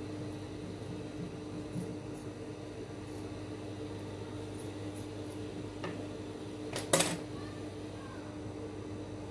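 Steady electric hum with a low drone, and a brief sharp clatter about seven seconds in, like a hard object knocked or picked up on the sewing table.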